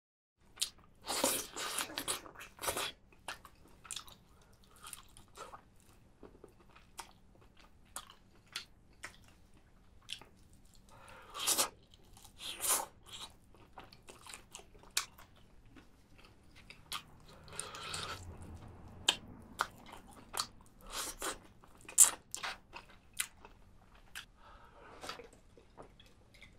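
A person chewing and biting into spicy chicken, with crunching and wet mouth clicks coming in irregular bursts.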